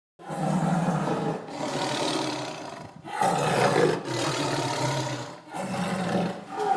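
A big cat, most likely a tiger, giving a run of about five rough, growling roars, each a second or so long, with short breaks between them.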